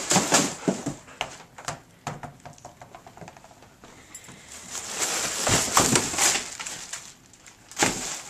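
Plastic wrap crinkling and a cardboard box rustling as a dog rummages through the box. The crackling comes in bursts, loudest in the first second, again from about five to six and a half seconds in, and briefly near the end.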